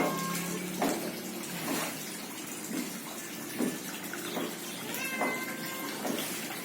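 Water trickling and splashing into a small garden fish pond, with a sharp drip or splash about once a second. A short pitched animal call sounds near the start and again about five seconds in.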